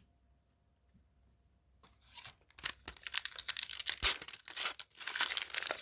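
A trading-card pack wrapper being torn open and crinkled, a dense crackling that starts about two seconds in after a near-silent pause.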